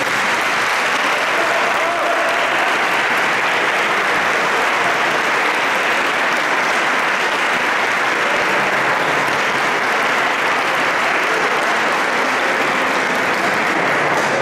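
Audience applauding steadily at the end of a choral piece.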